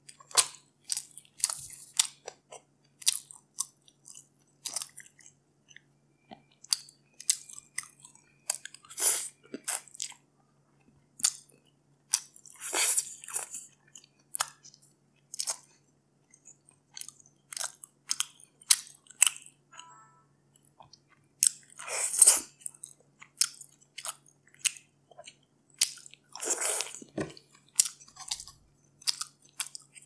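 Close-miked eating sounds of a person chewing soft grilled stingray and steamed rice: wet chewing, lip smacks and mouth clicks, coming in quick irregular bursts with brief pauses.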